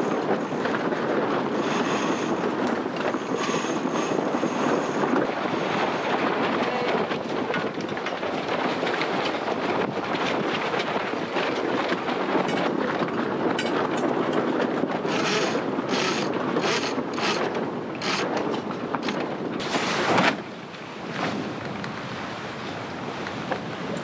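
Wind buffeting the microphone over the steady rush of water along a sailboat's hull under sail. In the middle stretch come short crackling splashes of spray. About 20 seconds in a loud rush swells and cuts off, leaving a quieter, steady wash.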